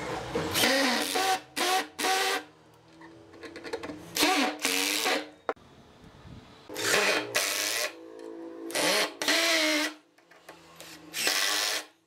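Cordless drill/driver running in repeated short bursts, its motor pitch rising and falling as it works screws into wooden blocks, with short quiet pauses between bursts.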